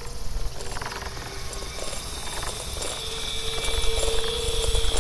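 Wind rumbling across the microphone, with scattered crackles from inflated plastic bags moving in the wind. A faint steady whistle grows stronger about three seconds in.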